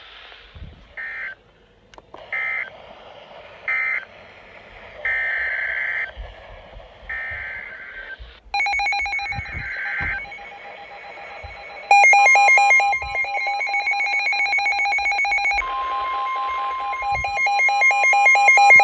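Emergency Alert System data bursts: three short, shrill digital bursts about a second apart, then longer ones, ending one alert and opening the next. They are followed by the loud EAS attention-signal alarm tone with a rapid beeping pulse over it, joined partway through by a steady single tone.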